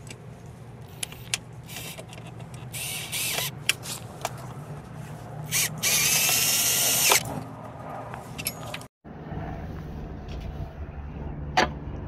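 Hand nut driver tightening a bolt through a steel L bracket: scattered metal clicks and two grating bursts of metal-on-metal scraping with a faint whine in them, a short one about three seconds in and a longer, louder one around six to seven seconds in. Near the end a steady low hum.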